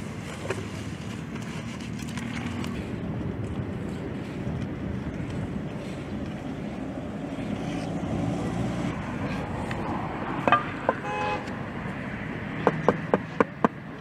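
Steady traffic noise with a short car horn toot about eleven seconds in. Near the end, a run of sharp taps, about three a second: a hammer tapping a stone paving slab down into its mortar bed.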